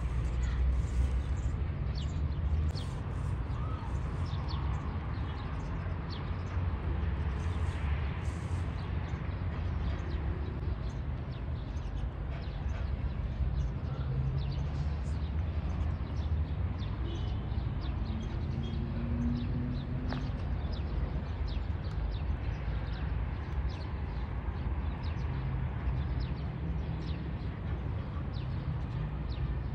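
Outdoor background: a steady low rumble, with many faint, short, high chirps scattered through it.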